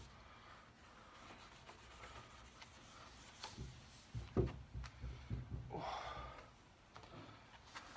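Fine steel wool rubbed by hand over a waxed wooden tabletop, buffing the wax with faint strokes; a run of low knocks and thuds comes about halfway through.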